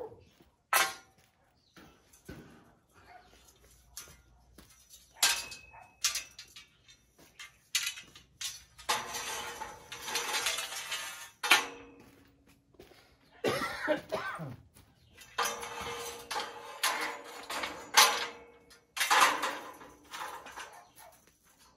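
Irregular metal knocks and clattering of scaffolding parts being handled, with a few longer stretches of scraping.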